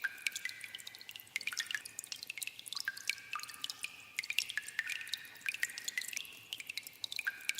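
Water dripping in a cave: many drops falling irregularly and overlapping, each a sharp plink with a short pitched ring.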